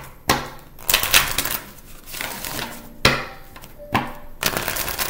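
A deck of oracle cards shuffled by hand: several short swishes of cards sliding over each other and sharp slaps of cards knocking together.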